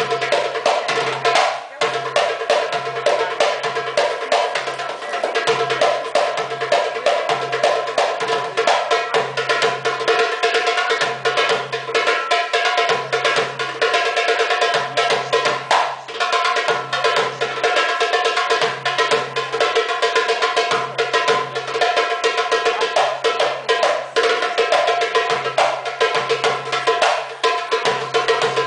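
Darbuka (Arabic goblet drum) played live in a fast, dense rhythm of rapid sharp strokes that runs without a break.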